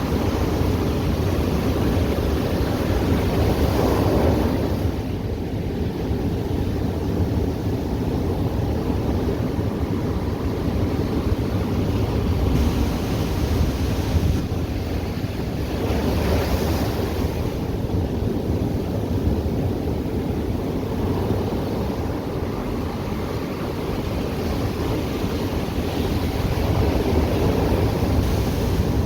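Ocean surf breaking and washing ashore in a continuous roar, with wind buffeting the microphone. The surf swells louder twice, about four seconds in and again about halfway through.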